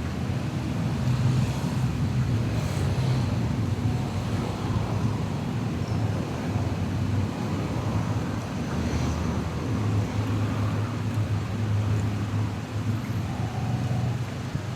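A steady low rumble with wind or handling noise on the microphone, like traffic or vehicle noise.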